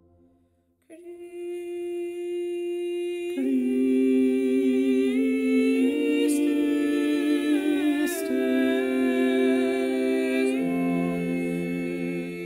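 Unaccompanied voices singing in harmony. A single voice holds a note, more voices join in a full chord about three seconds in and move slowly between chords, and a lower voice enters near the end.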